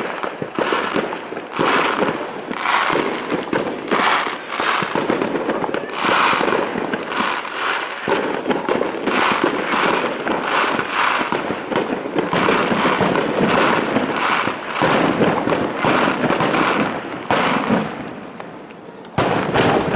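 Starmine fireworks barrage: aerial shells launching and bursting in quick succession, a dense run of bangs and crackles several times a second, dipping briefly near the end before a fresh burst.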